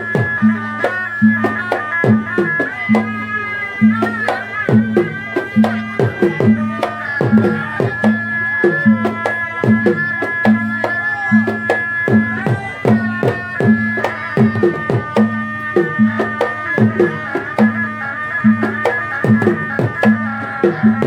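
Southern Thai–Malay folk ensemble music: a shrill reed-pipe melody held and bending over busy hand-drum strokes, with a low pulse repeating about every 0.7 seconds.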